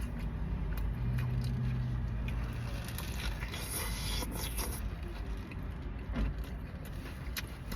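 Chewing and crunching while eating a burger, with small crackling clicks, over the low steady rumble of a car cabin.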